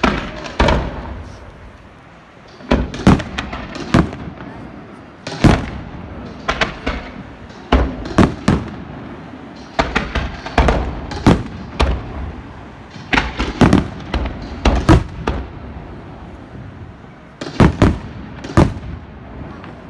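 Fireworks display: loud bangs of bursting fireworks, coming irregularly in quick clusters of two or three, each with a short echo.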